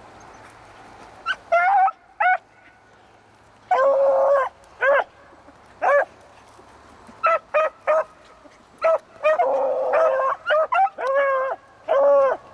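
A pack of beagles giving tongue on a rabbit's scent line: short chop barks and a few longer bawling bays from several hounds. The voices start about a second in and come thicker and overlapping in the second half.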